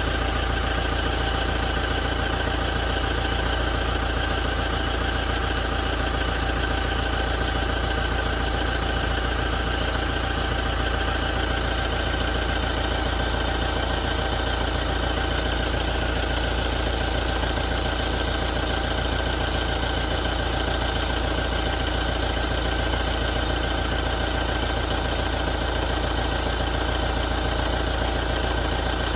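2017 Toyota diesel engine idling steadily with a knocking and rattling noise, which the owner reports appeared after a major service.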